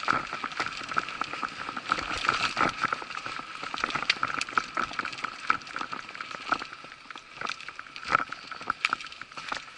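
Mountain bike ridden fast along a dirt forest trail: tyres rolling over the ground, with frequent rattles and knocks from the bike over bumps and roots, and a steady high hum running underneath.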